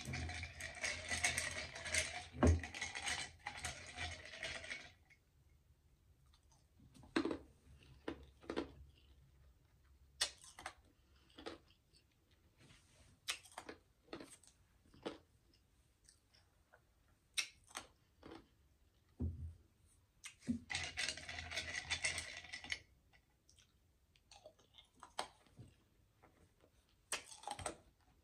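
A glass mug packed with ice, handled and drunk from through a plastic straw: ice shifting and clinking in the glass in two longer noisy stretches, at the start and about two-thirds through, with scattered small clicks in between.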